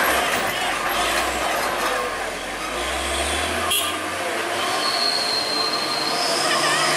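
Heavy diesel cargo truck labouring round a steep uphill hairpin, its deep engine rumble fading about four seconds in, over road noise, with a thin high squeal near the end.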